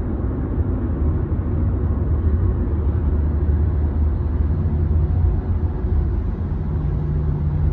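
Steady rumble of a moving car heard from inside the cabin, with road and engine noise and a low hum that grows stronger about halfway through.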